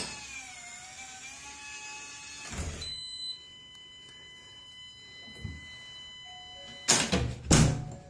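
SwitchBot smart lock's motor whirring as it turns the door's thumb-turn, its pitch bending, then a clunk of the bolt about two and a half seconds in. Two loud knocks follow near the end.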